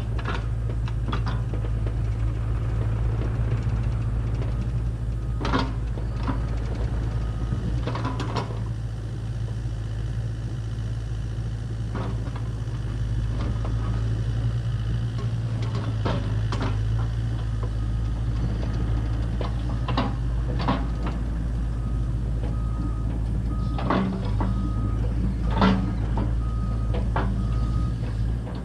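Takeuchi TB285 excavator's diesel engine running steadily under hydraulic work, with scattered sharp knocks and clanks of the bucket and rip rap boulders striking rock, and short high beeps repeating in several groups.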